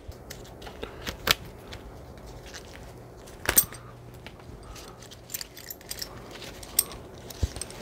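SOF-T Wide tourniquet being handled and unfolded: scattered clicks and clinks from its metal windlass and fittings over light rustling of the strap. The loudest clicks come about a second in and again about three and a half seconds in, with smaller ones near the end.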